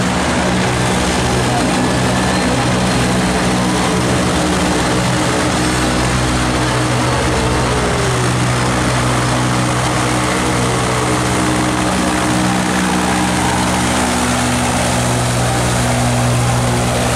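An engine running steadily and loudly, a constant low hum over a rushing noise that does not let up.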